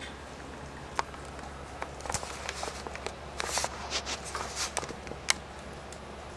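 A puppy mouthing and chewing an older dog's paw: irregular soft clicks and wet crackles, busiest from about two seconds in, with a few sharper clicks, over a steady low hum.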